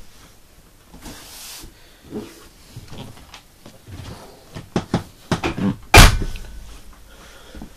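Hinged storage lid of an ambulance bench seat being lowered and shut. A few clicks and knocks of handling and the latch lead to one loud bang as the lid closes about six seconds in.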